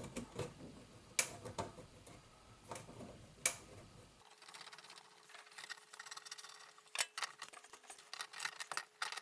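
Scattered light clicks and ticks of a washing machine hose's threaded coupling being hand-screwed onto a laundry valve, with a sharper click about three and a half seconds in and a quicker run of ticks near the end.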